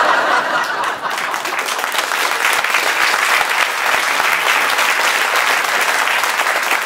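Live comedy audience applauding steadily after a punchline: dense, even clapping throughout.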